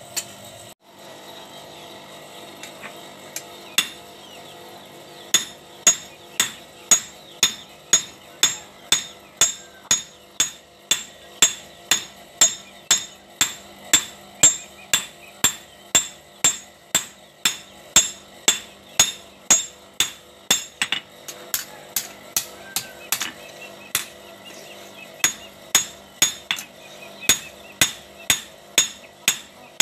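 Hand hammer forging a red-hot machete blade on a steel anvil, a steady run of sharp ringing blows about two a second. There are only a few scattered blows at first and a short pause about 24 seconds in.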